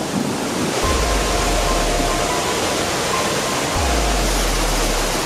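Stream water rushing over rocks in a steady wash, with background music of long low bass notes and a few thin held tones.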